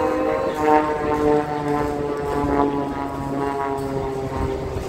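Propeller-driven aerobatic display plane flying overhead, its engine a continuous drone whose pitch wavers and drops slightly as it manoeuvres.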